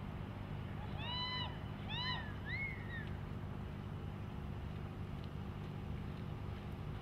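Three short whoops from spectators, each rising then falling in pitch, between about one and three seconds in, over a steady low hum.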